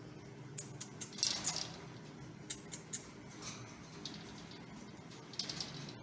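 Scratchy rustling and light clicks in short irregular bursts as an English Angora rabbit shifts on a wire-mesh cage floor and a hand grips and strokes its long fur, over a low steady background hum.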